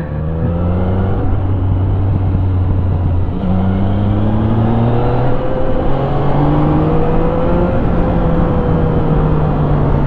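Yamaha XSR900's inline three-cylinder engine pulling the bike along, its note climbing with the revs and stepping down at gear changes several times, over a steady rush of wind and road noise.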